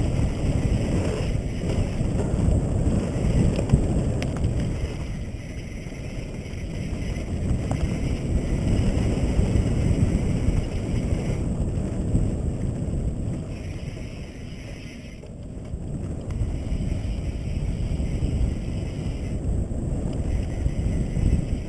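Wind buffeting an action camera's microphone as a mountain bike rides fast down a dirt trail, with tyre rumble and bike rattle underneath. The rumble eases twice, briefly, then picks up again.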